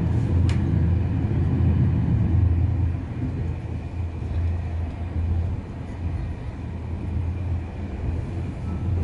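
Steady low rumble of a passenger train running along the track, heard from inside the carriage, with a short click about half a second in and a slight drop in level from about three seconds in.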